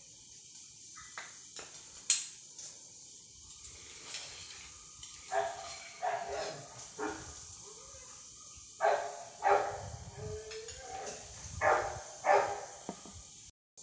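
A dog barking repeatedly in short runs of two or three barks from about five seconds in. Before that come a few sharp clicks of a metal spoon against the steel idli moulds as the idlis are prised out.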